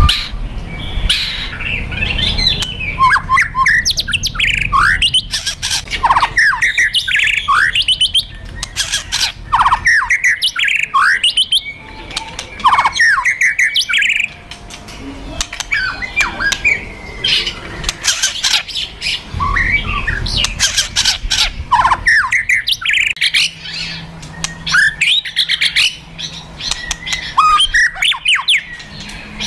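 White-rumped shama (murai batu) giving aggressive fighting calls: dense strings of harsh rattling clicks ('kretekan') and sharp shot-like notes ('tembakan'), mixed with quick downward-sliding whistles.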